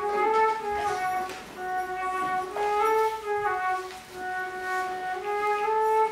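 Instrumental music: a slow solo melody of long held notes on a single instrument, moving back and forth between a higher and a lower note.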